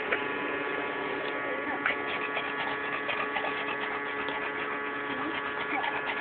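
A steady hum made of several constant tones, with faint scattered ticks and taps over it.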